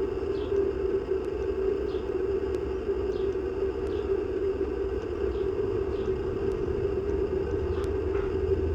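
Outdoor background of a car driving by: a low, steady rumble over a constant hum, growing louder near the end.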